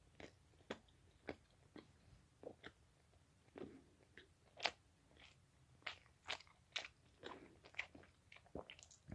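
A person chewing a piece of teriyaki beef steak snack close to the microphone: quiet, irregular wet clicks and smacks of the mouth, roughly two a second.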